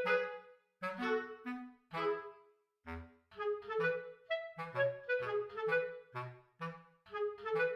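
Light instrumental music: a bouncy tune of short, detached notes over a bass line, with a brief pause about three seconds in.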